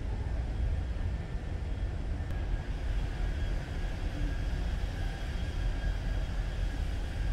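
Steady low rumble of a large car ferry under way, its engines and machinery droning through the hull inside the ship.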